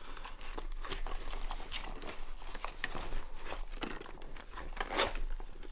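Rustling and small clicks of hands handling a Daiichiseiko nylon fishing bag and its zippered Sub Pocket pouch.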